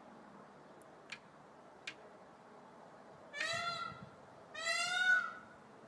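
A bird calling twice, two loud nasal calls each under a second long, the second a little longer; two faint clicks come before them.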